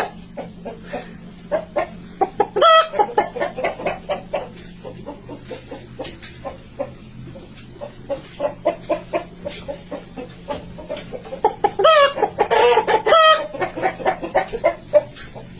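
A person imitating a hen's clucking ('petok petok'): a string of short clucks, with a louder rising cackle about three seconds in and another from about twelve seconds that lasts a second or two.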